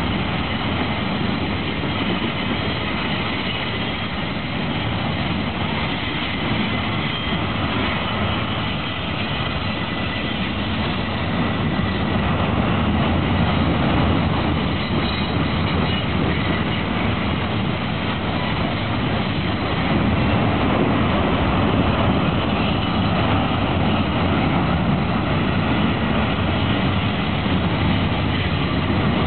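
Autorack freight cars rolling past on steel wheels: a steady rumble and rush of rail noise from the passing train.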